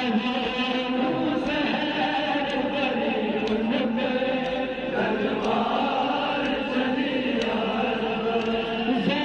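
Voices chanting a mournful noha lament together, sung in a continuous chorus.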